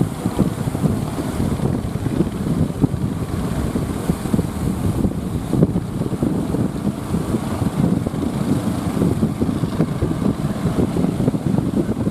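Strong coastal wind buffeting the microphone in a continuous low, gusty rumble, with surf underneath.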